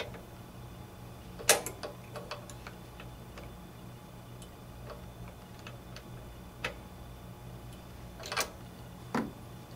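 Scattered light metallic clicks and ticks of a T-handle spark plug wrench working a spark plug loose from a lawn mower's cylinder head. The loudest clicks come about a second and a half in and twice near the end.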